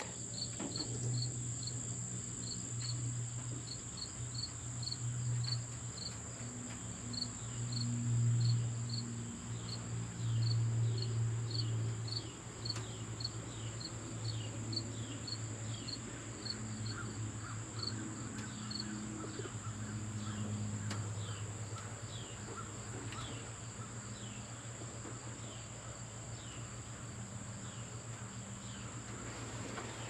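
Insect chorus of crickets calling: a steady high-pitched drone with a run of short falling chirps about twice a second, over a low steady hum.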